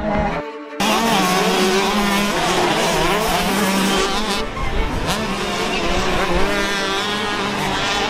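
125cc motocross bike engines revving up and down, their pitch rising and falling constantly, with a brief cut-out about half a second in.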